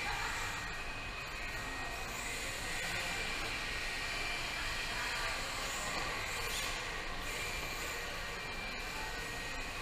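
Steady background noise of a large indoor hall, an even hiss-like hum with no distinct event standing out.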